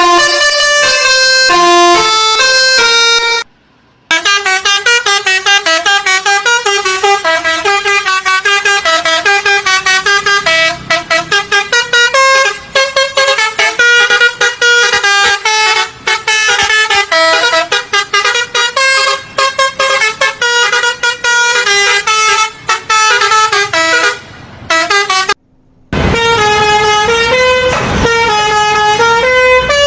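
Basuri telolet bus horn playing a fast tune of stepped notes on its multi-tone horns, many notes short and clipped. The tune breaks off twice and starts again, and in the last few seconds a low rumble sits beneath it.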